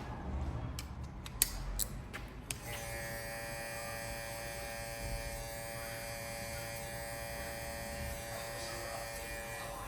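A few sharp clicks, then about two and a half seconds in a cordless electric hair clipper switches on and runs with a steady buzz.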